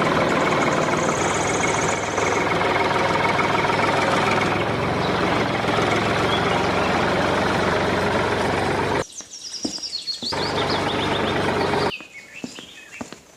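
A loud, steady mechanical noise, like a running motor, cuts off abruptly about nine seconds in, returns briefly, then stops again near the end. Birds chirp in the quieter gaps.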